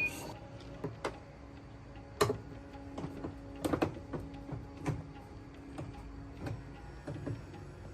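Repaired washing machine running: a steady low motor hum with irregular clicks and knocks, the loudest about two seconds in and a quick cluster a little later.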